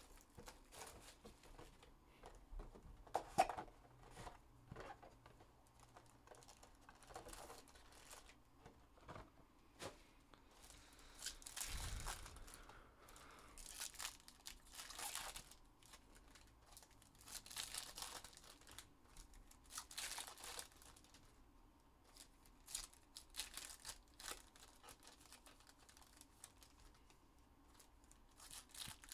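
Faint crinkling and tearing of packaging: plastic shrink wrap pulled off a box of trading cards, then foil card packs ripped open and crumpled, in short bursts every few seconds.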